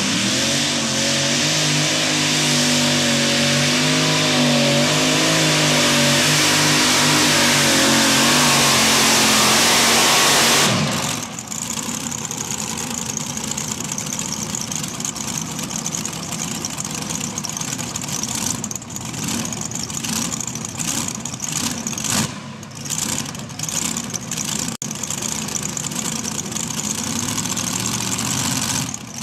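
Modified pulling tractor's supercharged engines running flat out under load as it drags the sled, the pitch wavering. The engine note cuts off sharply about eleven seconds in as the pull ends, leaving a steady, lower engine rumble.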